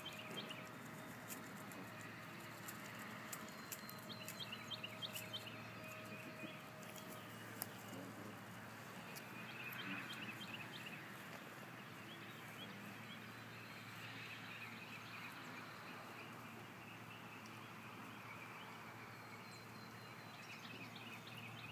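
Canada goose grazing, its bill plucking at the grass in a run of faint sharp clicks over the first several seconds. Small birds chirp in short twittering runs now and then over a steady low hum.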